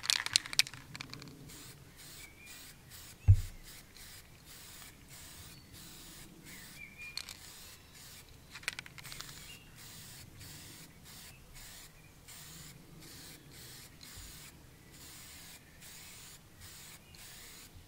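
Aerosol spray-paint can hissing faintly in short bursts as matte brown paint is misted onto a flocked goose decoy head. The can's mixing ball rattles briefly at the start, and a single thump sounds about three seconds in.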